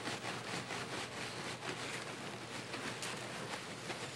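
Spoon stirring thick muffin batter of flour, yogurt, butter and eggs in a glass bowl: soft, repeated scraping and squelching strokes, the stage where the wet ingredients are being worked into the dry by hand.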